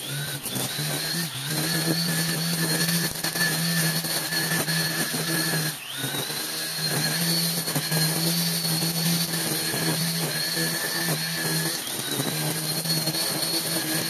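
String trimmer running steadily as it cuts through long grass, with a high whine over a lower hum. Its pitch dips and climbs back a few times as the line bites into thick grass and frees up again.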